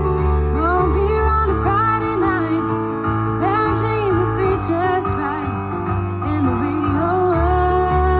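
A woman singing a melody live, backed by an instrumental accompaniment with long, sustained low bass notes.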